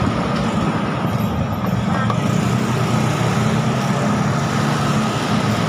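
Motor scooter engines running at low speed in slow, crowded traffic: a steady hum with a thin steady whine above it.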